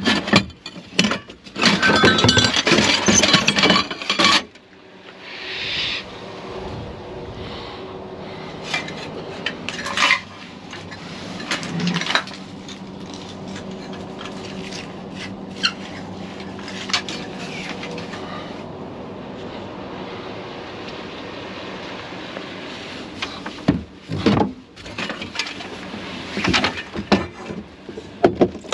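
Scrap items being handled and loaded: bursts of clattering, clinking and rubbing of metal and wood, loudest in the first few seconds and again near the end, with scattered knocks between over a steady low hum.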